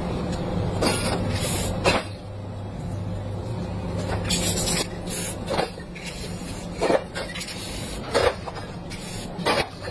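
Aerosol spray paint can hissing in a series of short bursts, the longest lasting under a second, over a steady low hum.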